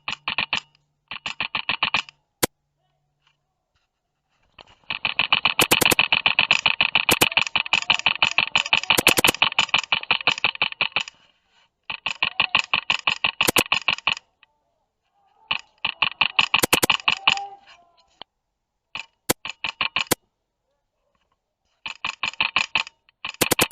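Airsoft guns firing in rapid strings of sharp cracks, about a dozen a second, in repeated bursts of one to several seconds with short silent gaps; the longest burst runs from about five to eleven seconds in.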